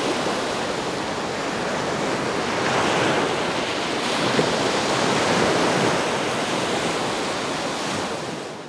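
Small surf breaking and washing on a sandy beach, a steady rush that swells and eases slowly, fading out at the very end.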